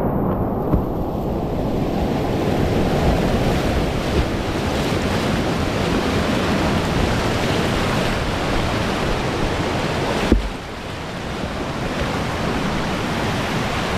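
Whitewater rapids rushing and churning around a kayak, a dense steady wash of water noise. A single sharp knock a little over ten seconds in, after which the water noise drops somewhat.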